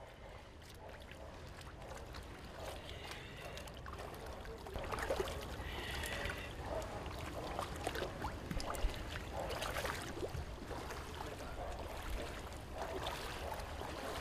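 Knee-deep floodwater sloshing and splashing, with small irregular splashes and knocks, as two men prod a stick into a blocked street drain under the water to clear it.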